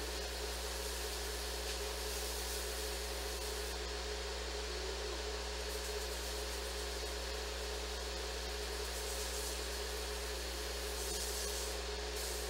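A steady mechanical hum with hiss, unchanging throughout, like a fan or appliance running in a small room.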